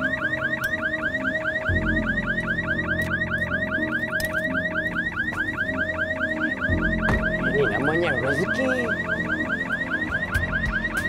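Car alarm going off in a fast, evenly repeating upward chirp, about six chirps a second, over background music.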